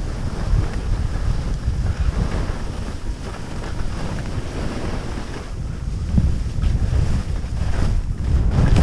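Wind buffeting the microphone while skiing downhill: a steady, rough rushing noise heaviest in the low end.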